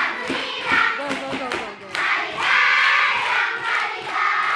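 A class of schoolchildren clapping in a steady rhythm, about three claps a second, while singing together loudly.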